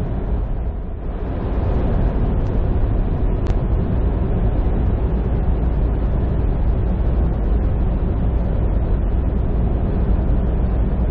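Steady low rumble of a transport truck's engine and tyres at highway speed, heard from inside the cab.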